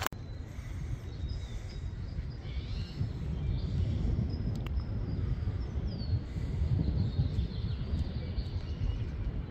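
Outdoor ambience: a loud, uneven low rumble, with a few birds chirping faintly now and then.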